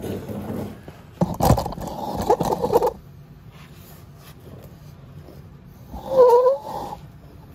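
Metal scraping and rattling as the motorcycle's exhaust pipe is worked into place at the manifold, with a faint squeak through it. A short wavering squeal comes near the end.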